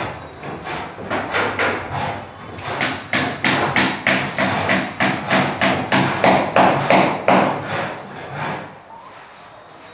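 Rapid repeated knocks, about four a second, like blows struck on a hard surface; they are strongest in the middle and fade out near the end.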